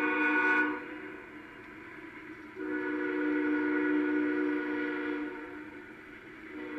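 Union Pacific diesel locomotive's five-chime air horn (Nathan K5HL) sounding a chord in blasts: one ends about a second in, a long blast starts a couple of seconds later and fades, and another begins near the end. It is heard through a webcam live stream played on computer speakers.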